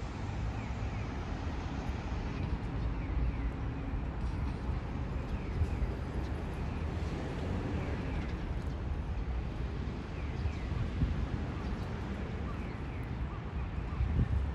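Steady rumble of city traffic from the surrounding roads, with faint bird chirps now and then.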